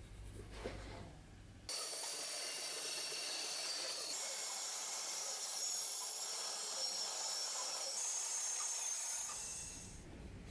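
Benchtop band saw cutting a wooden knife-handle blank: a steady high hiss with a faint whine that starts suddenly about two seconds in and dies down near the end. Before it there is light handling of the wood block on the bench.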